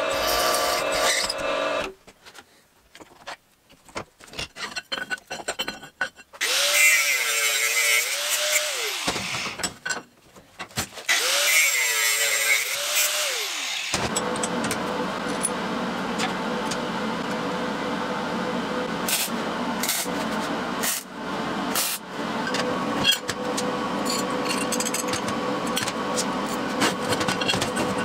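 Drill press boring into steel plate, its motor and cutting bit running, stopping about two seconds in. After a gap with a few clicks, two short spells of a tool spinning up and down follow, then steady machine running with scattered metallic clicks from about halfway on.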